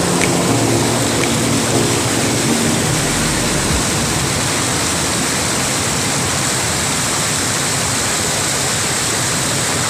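Small waterfall pouring onto rocks, a steady loud rush of falling and splashing water. Faint background music dies away in the first few seconds.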